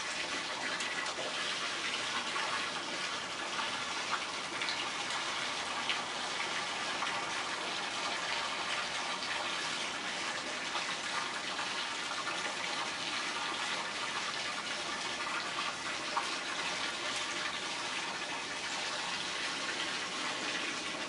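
A steady rushing, water-like noise with a few faint clicks.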